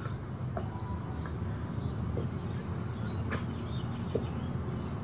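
Outdoor ambience: a steady low rumble with a few short, faint chirps and clicks scattered through it.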